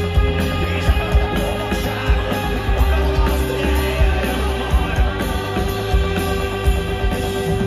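Live rock band playing through a large outdoor PA, heard from within the crowd: a steady drum beat under guitars and keyboards, with a long held note sustained through most of the passage.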